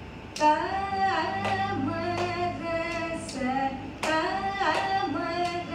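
A woman singing a Carnatic melodic phrase, holding notes and gliding between them, over a steady drone, with a sharp click roughly once a second.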